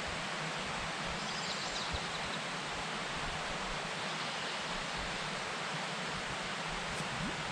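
Steady outdoor background hiss, with a few faint high chirps about a second and a half in and a single short click near the end.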